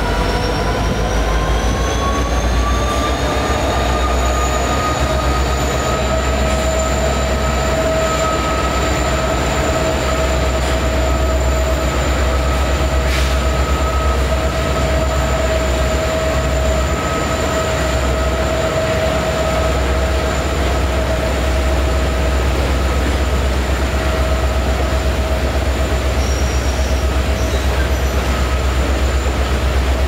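Norfolk Southern freight train passing over a steel bridge, with a steady deep rumble from the cars. Over it runs a high-pitched whine of several tones that climbs in pitch over the first few seconds, then holds steady.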